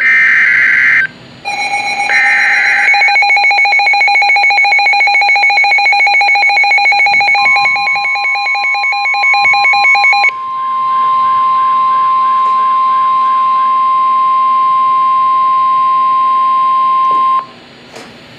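Emergency Alert System tones from a weather-radio broadcast. First come two bursts of screeching SAME digital header data. Then a rapidly pulsing beep alarm starts, and about seven seconds in the steady single-pitched NOAA Weather Radio warning alarm tone joins it, holding for about ten seconds before it cuts off.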